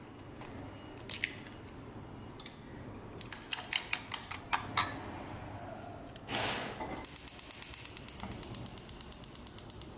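Chopsticks beating eggs in a ceramic bowl, clicking sharply against its side, then a short rush of noise. After that a gas hob's igniter ticks rapidly and evenly as the burner knob is turned to light it.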